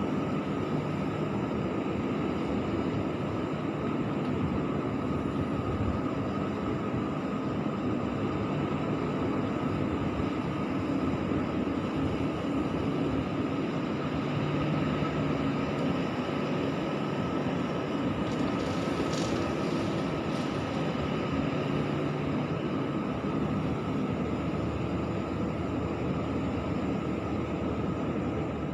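Hyundai 140W wheeled excavator's diesel engine running steadily under load while loading gravel, with a steady whine over the engine noise. A brief, faint high hiss comes about two-thirds of the way through.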